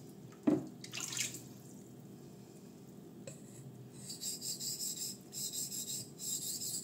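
A single sharp knock about half a second in. Then, from about four seconds in, quick repeated scraping strokes, roughly three a second, as the 154CM steel blade of a Kizer Fighter folding knife is sharpened on a wet Suehiro Ouka 3000-grit waterstone.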